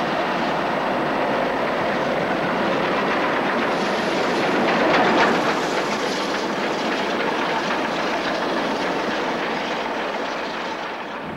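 BR Standard Class 4 2-6-4 tank steam locomotive and its train running through a station at speed, wheels rattling on the track; it grows louder to a peak as it passes about five seconds in, then fades as it moves away.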